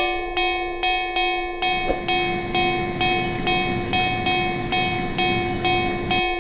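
Railroad crossing warning bell ringing in a steady repeated clang, about two strikes a second. The rumble of a passing train joins about a second and a half in and cuts off just before the end.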